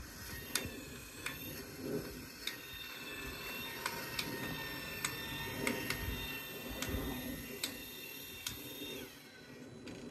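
VEVOR 24-volt linear gate opener actuator arm running as it pulls a swing driveway gate closed: a steady high motor-and-gear whine with regular faint ticks. It stops about nine seconds in as the gate reaches the closed limit, very smooth and soft.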